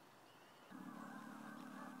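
Faint wetland ambience with a few high, distant bird chirps. Under a second in, a steady chorus of many waterfowl calling together starts suddenly and carries on.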